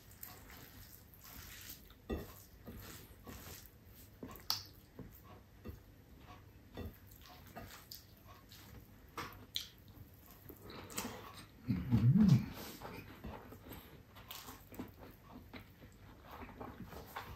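Close-up eating sounds of a man eating rice, stir-fried chicken and pechay by hand: soft chewing, lip smacks and small wet clicks, with a short low vocal sound about twelve seconds in.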